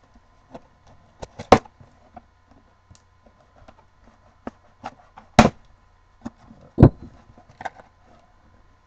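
A cardboard shipping box being slit open with a large knife and its flaps pulled open: scattered knocks, scrapes and rustles of cardboard, with three louder knocks about a second and a half, five and a half and seven seconds in.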